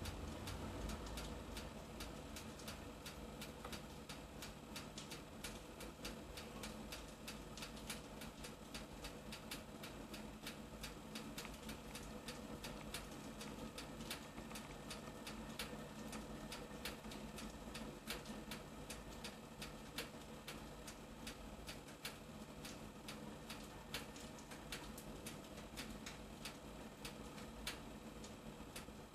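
Pellet stove fire crackling with many small, irregular pops over a steady low hum and roar.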